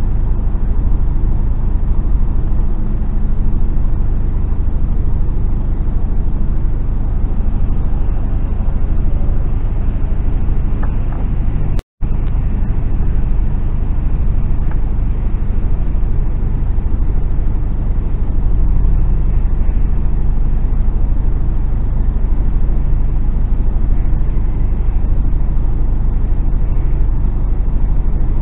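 Steady low drone of a Mercedes Actros lorry's diesel engine and road noise heard from inside the cab, with the sound cutting out completely for a split second about twelve seconds in.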